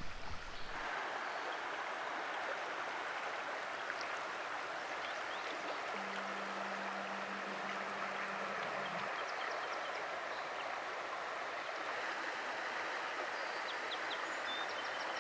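Shallow, rocky trout stream running, a steady rush of water over stones.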